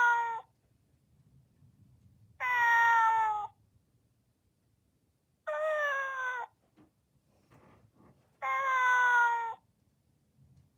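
Trendmaster Nadenade Neko-chan robotic cat playing its recorded 'sleeping voice' meow through its speaker when a hand rests on it. The tail of one meow comes first, then three more meows about three seconds apart, each about a second long and falling slightly in pitch.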